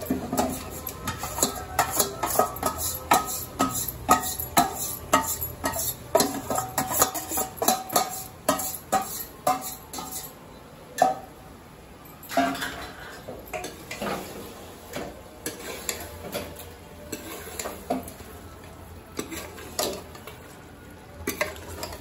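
A steel ladle clinking, knocking and scraping against a steel bowl and a metal pressure cooker as marinated mutton is scraped into the cooker and stirred into the masala. The knocks come quickly for about the first ten seconds, then more sparsely.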